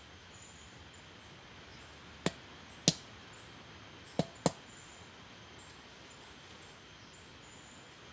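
Four sharp clicks in two pairs, from a small white canister and its cap being handled, over a faint outdoor background of small high chirps.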